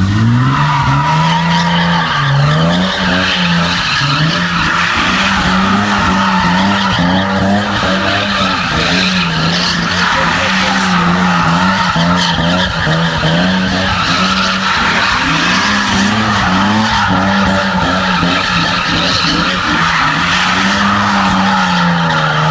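Car doing donuts on tarmac: the engine is held at high revs, its pitch wavering slightly up and down, while the tyres squeal without a break.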